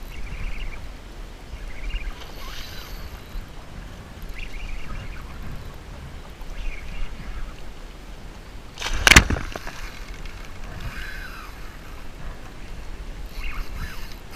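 Small waves lapping and sloshing against a kayak hull every second or two, over a low wind rumble on the microphone. About nine seconds in comes one sharp knock, the loudest sound.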